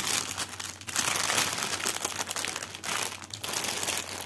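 Clear plastic packaging crinkling as it is handled and pulled open, in irregular rustling spells with brief pauses between them.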